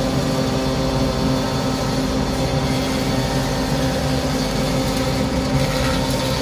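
Planer thicknesser running steadily, its 2200 W induction motor driving the spiral cutter block in an even, constant hum.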